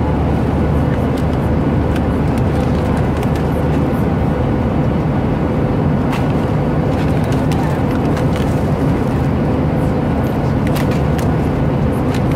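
Steady, loud, low drone of an airliner cabin in flight: engine and airflow noise. Now and then it is broken by short crinkles and taps of a cardboard snack box and wrapped snacks being handled.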